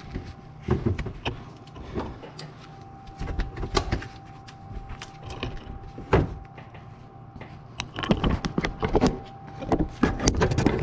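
Irregular knocks and clanks of hand tools against engine parts as a long-handled wrench is levered on the serpentine belt tensioner and a large screwdriver pries the belt off a pulley. A faint steady tone hums underneath.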